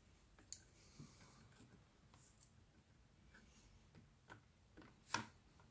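A handful of faint, sharp clicks from small phone parts being handled as the iPhone 7 Plus display's flex-cable connectors are pressed onto the logic board, the loudest about five seconds in, between them near silence.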